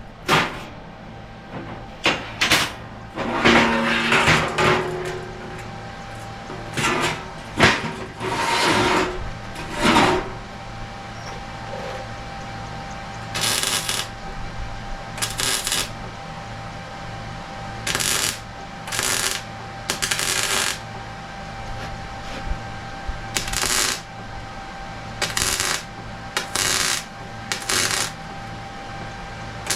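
Metal fabrication work: a series of short crackling, hissing bursts, each about half a second to a second long and irregularly spaced. In the first few seconds there are clanks of metal with a brief ringing.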